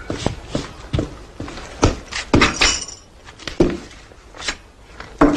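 Glasses and dishes being set down on a table: a run of irregular light clinks and knocks.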